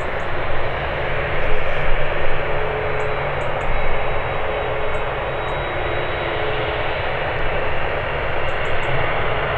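Boeing 787 Dreamliner's jet engines running steadily at taxi power with a thin whine as the airliner turns onto the runway.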